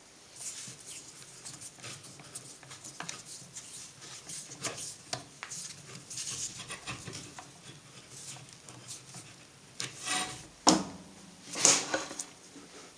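Small clicks, scrapes and rubbing of a plastic angle grinder brush cover being handled and screwed back on with a screwdriver. A few louder sharp knocks come near the end.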